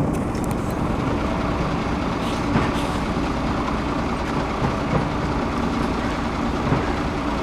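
Railway locomotive approaching slowly, giving a steady rumble with a constant low hum.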